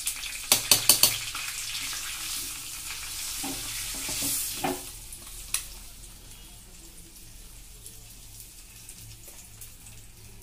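Tadka of cumin seeds, dried red chillies and red chilli powder sizzling in hot oil in a small iron kadhai. Four quick sharp clicks about half a second to a second in, and the sizzle dies away about halfway through.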